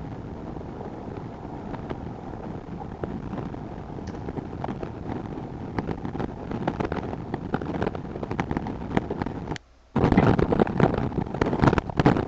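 A steady rush of wind noise on an outdoor nest-cam microphone, full of small crackles and clicks. Near the end it drops out briefly, then comes back louder with dense crackling and popping.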